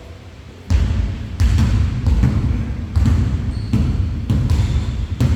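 Basketball bouncing on a gym floor, an uneven run of dull thuds beginning under a second in, about two a second.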